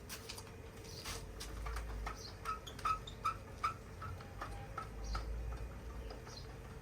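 Gear (reductor) mechanism of a manual retractable awning being wound open by hand, giving a regular series of clicks, each with a short squeak, about three a second for a few seconds.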